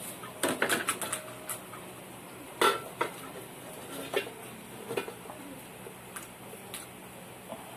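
Cutlery and dishes clinking: a spoon knocking on dishware in irregular short clinks, a quick cluster in the first second and the loudest one a little before the three-second mark, then fainter, sparser ones.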